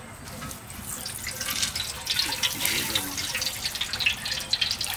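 Cooking oil poured in a thin stream from an aluminium pot into a large hot iron karahi, the pouring and splashing building up about half a second in.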